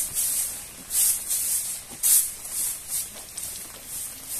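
Repeated short hissing spurts from a hand-held sprayer, about one or two a second.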